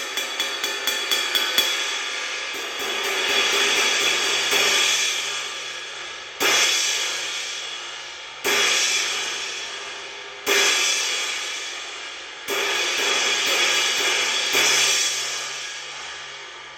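Zildjian 19" K Custom Hybrid Trash Smash cymbal played on its own. A quick run of strikes builds in the first second and a half and swells into a wash. Then come single crashes about every two seconds, each ringing out and decaying, the last fading away near the end.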